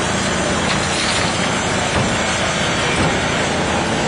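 Hydraulic rescue equipment's power unit running steadily during a car extrication, with two short knocks about two and three seconds in.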